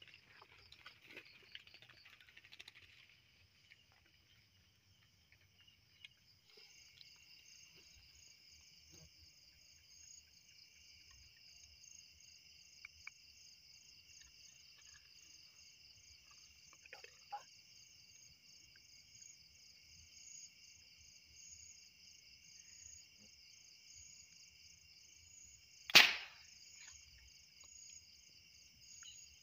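A steady, high, pulsing night-insect chorus, and near the end one sharp, loud pop from a homemade PVC air gun being fired.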